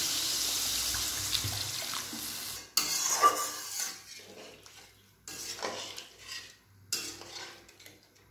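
Water being poured into a hot kadai of fried mustard paste and brinjal, a steady hiss that stops abruptly about two and a half seconds in, as water goes in for the curry's gravy. After it, a steel spatula scrapes and stirs the thin curry against the metal kadai in three short bursts.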